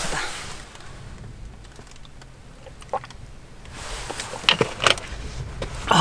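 Sea surf heard as a low rumble from inside a parked car, swelling in the last couple of seconds, with a few short handling clicks and rustles over it.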